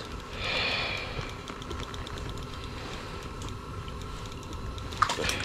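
Small spinning reel on an ice-fishing rod being cranked to bring up a hooked fish: a soft whirring and faint ticking over a steady hiss.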